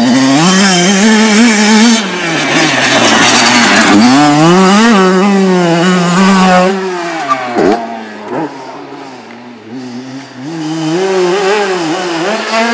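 Kawasaki KX 100 two-stroke motocross bike ridden hard on a dirt track, its engine note climbing and dropping again and again as the throttle is worked through the gears. A little past halfway it backs off and goes quieter, then pulls up to speed again near the end.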